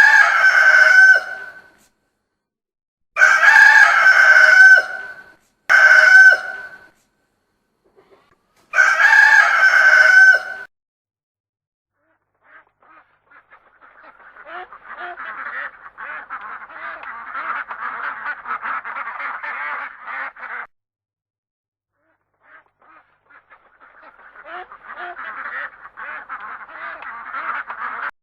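A rooster crowing four times in quick succession, each crow one to two seconds long. Then come two longer stretches of a flock of farm birds calling rapidly over one another.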